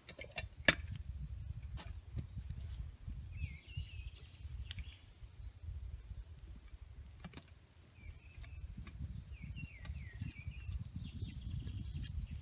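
A small bird chirping in short, sliding phrases several times, over a low, steady rumble, with scattered sharp clicks. The loudest click comes just under a second in.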